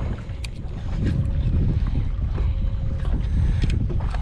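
Wind buffeting an open-air camera microphone, a fluttering low rumble, with a faint steady hum and a few light clicks.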